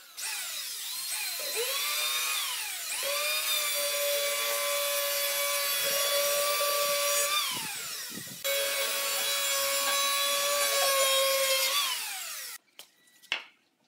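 Electric hand planer cutting along the edge of a wooden board. Its motor whine rises and falls as it is started and let off a couple of times, then runs steady for several seconds and winds down. It starts again about halfway through and runs until it winds down near the end.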